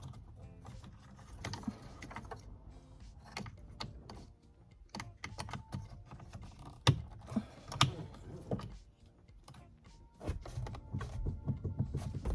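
Irregular small clicks and taps of hard plastic steering-wheel trim and tools being handled, with two louder knocks about halfway through.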